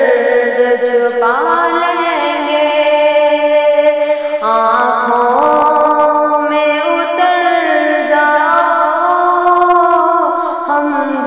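Ghazal music: a woman's voice singing long held notes that slide between pitches.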